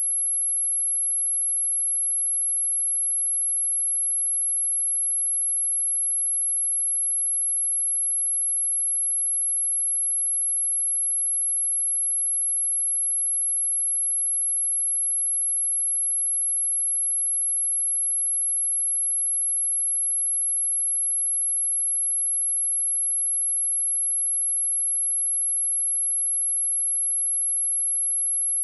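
A single steady high-pitched 11087 Hz sine tone, held unchanged: a speaker test signal also used to shake dust and water out of a speaker.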